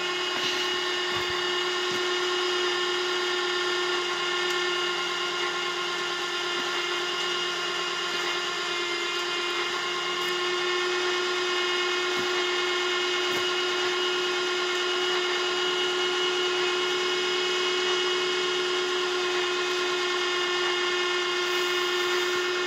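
Electric winch motor driving the telescopic lattice mast of a Salzgitter FTM 25/6 mobile mast, running at a steady pitch with a high whine, then cutting off at the end.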